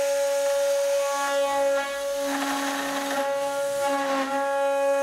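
CNC router spindle milling an aluminium plate: a steady high-pitched whine with many overtones, with rougher cutting noise swelling in the middle as the cutter bites and the pitch dipping briefly under load about four seconds in.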